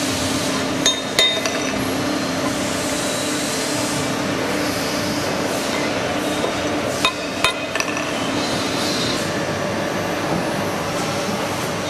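Steady factory machinery noise with sharp metallic clinks of metal parts striking, a few about a second in and another cluster around seven seconds.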